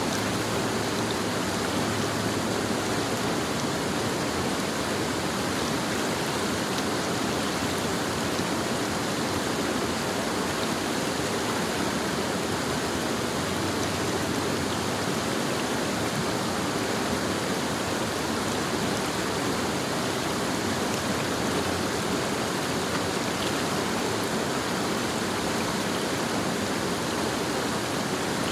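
Creek water rushing steadily, an even hiss with no breaks.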